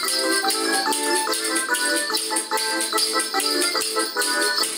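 Lively folk-song backing music with hand rattles shaken in a steady beat.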